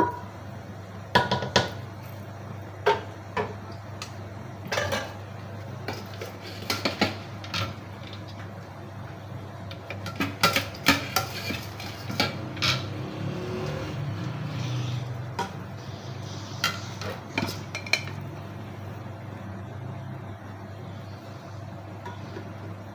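A spoon and spatula clink, knock and scrape against a steel cooking pot in irregular strikes, thinning out near the end, over a steady low hum.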